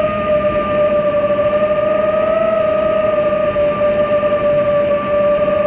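FPV quadcopter's brushless motors and propellers whining at a steady throttle, heard from its onboard camera, the pitch holding nearly level throughout.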